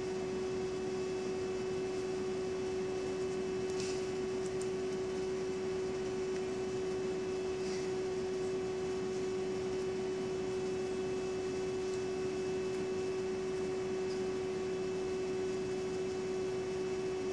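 Electric fan running with a steady whir and a constant humming tone. A couple of faint soft clicks come through about four and eight seconds in.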